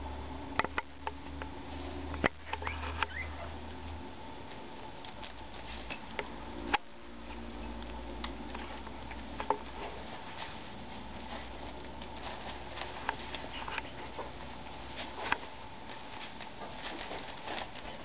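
Guinea pigs and cockatiels foraging in wood shavings and hay: scattered light rustles, nibbles and clicks, with a few short high chirps between two and three seconds in.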